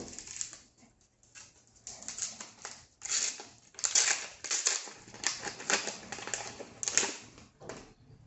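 Foil wrapper of a Magic: The Gathering draft booster pack being torn open and crumpled by hand: a run of sharp, irregular crinkling and crackling, thickest in the middle few seconds.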